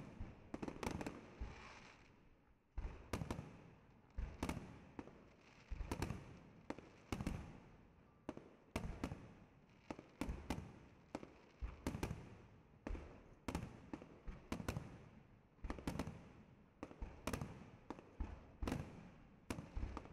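Aerial firework shells bursting in quick succession: sharp bangs, often several close together, each trailing off in an echoing rumble.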